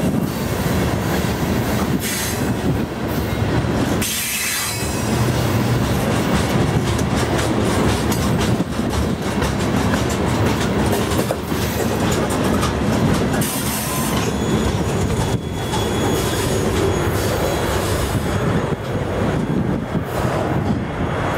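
Loaded rock hopper cars of a freight train rolling past close by: steel wheels clacking and rattling over the rails, with thin high wheel squeal at times.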